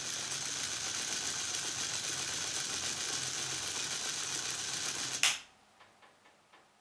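Small battery-powered DC motor driving a lantern-wheel gear train and plastic fan blades, running with a steady high whir and mechanical clatter. About five seconds in, the switch clicks off and the gears give a few faint ticks as they spin down.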